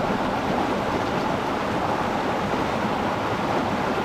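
Mountain stream rushing steadily over rocks into a rock pool, heard close up at the water's edge.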